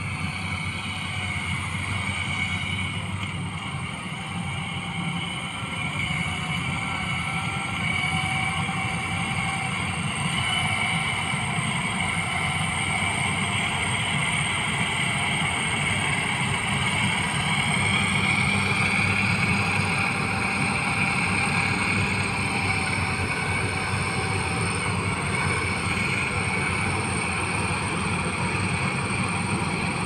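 Tracked rice combine harvester running steadily as it works through the crop: a low engine rumble under a high, steady whine that rises slightly about halfway through.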